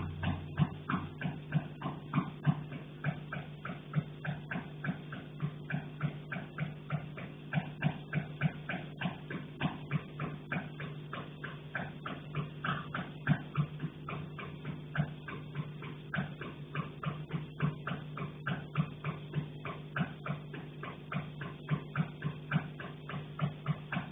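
Repeated knocking, about two to three knocks a second, kept up steadily over a low constant hum.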